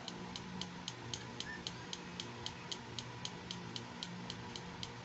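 Steady, even ticking, about four light, sharp clicks a second, over a low hum.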